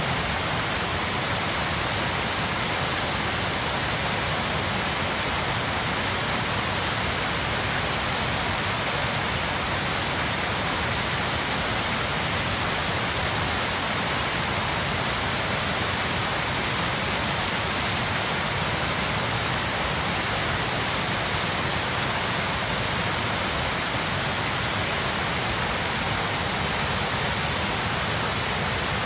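Water overflowing a reservoir spillway and cascading down into a creek: a steady, even rush of falling water.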